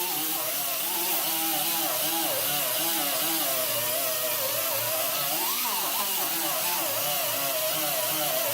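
Die grinder spinning an 80-grit Scotch-Brite disc against a steel bolt-cutter arm, blending out sanding marks. A steady whine with hiss that wavers in pitch as the disc is pressed and moved over the curved surface.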